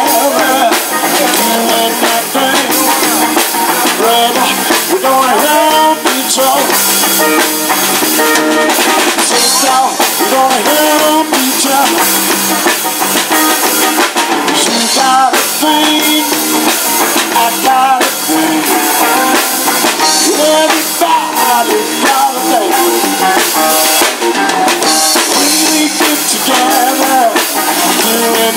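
Live band playing with electric guitars over a drum kit.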